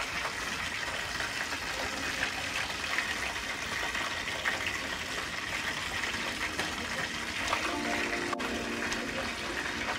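Hot oil sizzling steadily in a nonstick frying pan where hot water cornbread is being fried, with a faint tune underneath near the end.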